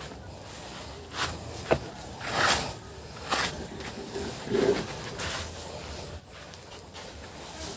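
Chickens clucking now and then in a chicken house, amid shuffling, scratching noises, with a sharp knock about two seconds in.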